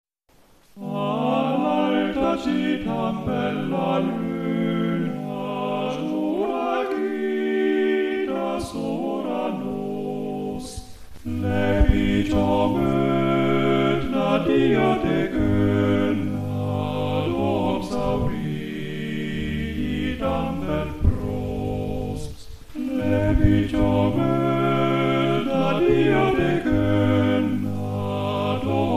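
Four-part choir singing a chorale in sustained phrases, with short breaks about 11 and 22 seconds in; deeper bass notes come in after the first break.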